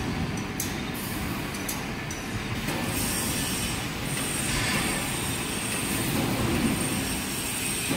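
Steady running noise of heavy workshop machinery, with a thin high whine that comes in about three seconds in and holds.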